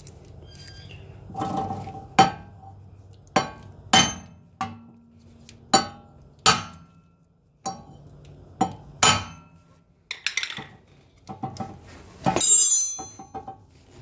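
Hammer blows on the original rear wheel hub of a 1993 Honda Accord wagon, struck to drive out a hub that might be seized: about ten sharp metal-on-metal strikes at irregular intervals, each with a short ring. Near the end comes a jangling metallic clatter.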